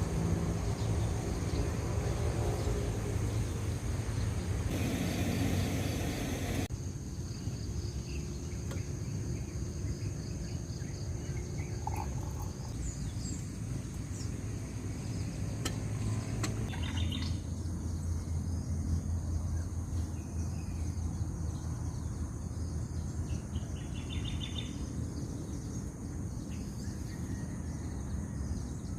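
Outdoor ambience: a steady low rumble under a continuous high-pitched insect drone, with a few short bird chirps.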